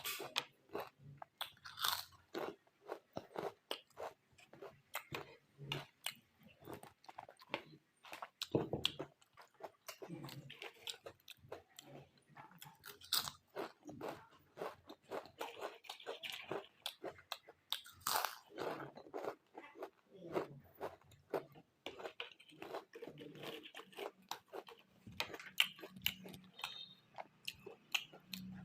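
A person biting and chewing crisp packaged chips: a dense, irregular run of sharp crunches, several a second, with short pauses between bites.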